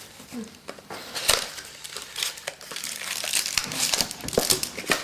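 Plastic and foil trading-card packaging crinkling and crackling in irregular bursts as packs of baseball cards are handled and torn open.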